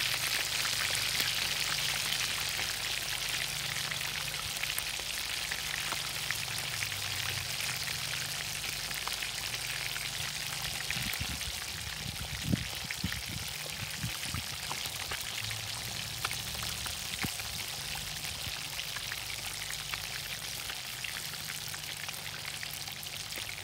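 Breaded fish deep-frying in hot oil in a cast-iron skillet: a steady sizzling hiss of bubbling oil that eases slightly toward the end. A few sharp knocks come about halfway through.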